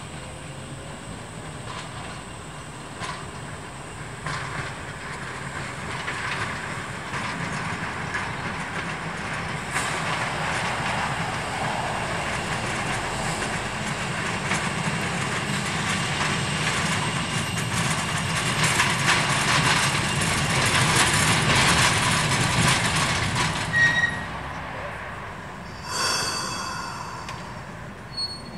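Ballast motor tram 42s running up a grade toward the listener. The rumble and grinding of its wheels on the rails grow louder for about twenty seconds as the wheels break through a thin film of fresh concrete left on the railhead. The noise falls away near the end, where two short high squeals come a couple of seconds apart.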